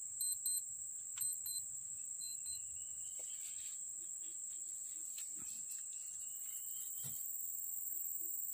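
Forest insects making a steady high-pitched drone, with short paired chirps repeated three or four times in the first few seconds and a couple of faint clicks later.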